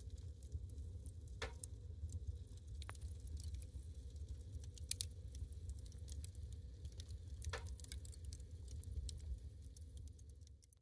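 Wood fire crackling: logs burning over embers, with scattered sharp pops over a low steady rumble, fading out at the end.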